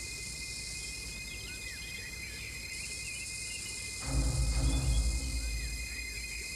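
Steady high chirring of crickets or other insects, with small bird chirps over it. About four seconds in, a louder low rumble swells up for a second or so and fades.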